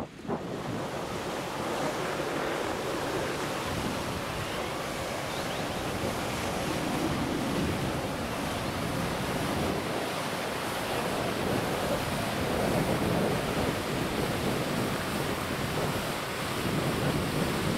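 Steady rushing noise of wind blowing over the microphone, swelling now and then in gusts.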